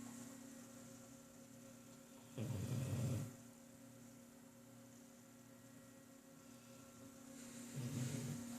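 Soft, slow snoring: two low snores about five seconds apart, one about two and a half seconds in and another near the end, over a steady electrical hum.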